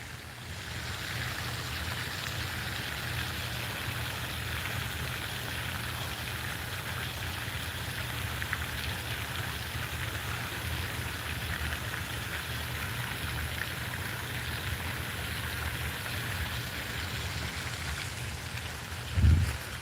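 Steady outdoor hiss with a low rumble underneath, and one short low thump about half a second before the end.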